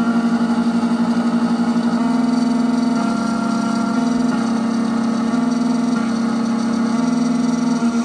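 Triton Plus computerised key-cutting machine milling a Hyundai key blade: a steady motor whine whose pitch steps every second or so as the cutter moves along the blade.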